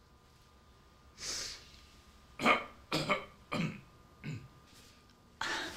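A person coughing and clearing the throat in several short sounds, after a faint breath. Near the end a steady hiss of background noise comes in suddenly.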